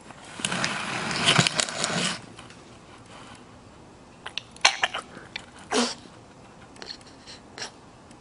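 Bulldog making noisy, breathy sounds: a rasping stretch of about two seconds, then a few short, sharp snuffles and clicks after a pause.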